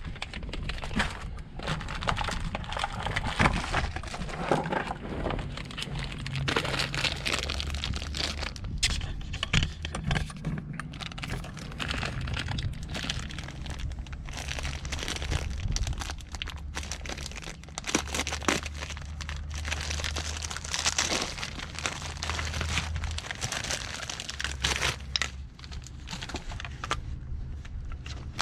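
Packaging crinkling, with irregular clicks and knocks as new brake parts and hardware are unwrapped and handled. An uneven low rumble runs underneath.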